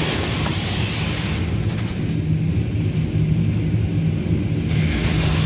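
High-pressure rinse jets of a RYKO UltraSonic 2001 touchless overhead car wash spraying the truck, heard from inside the cab: a hiss of spray that fades about two seconds in and comes back near the end, over a steady low hum and rumble.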